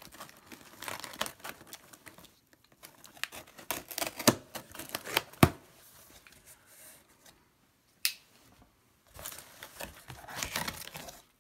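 Cardboard shipping box being opened by hand: packing tape slit and pulled, flaps prised open with scraping and several sharp snaps, then the crinkling of paper packing inside near the end.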